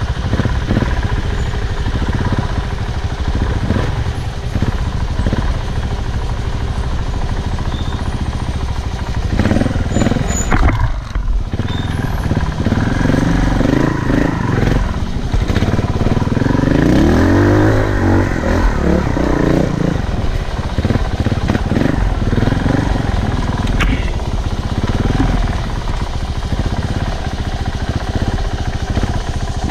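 Off-road motorcycle riding over a rough dirt trail: steady rumble and rattling knocks throughout, with a motor pitch rising and falling as the throttle changes about two-thirds of the way in.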